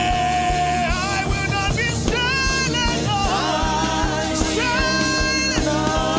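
Gospel worship song: a solo voice holds long, sliding sung notes over a band, with a steady low bass and a regular drum beat.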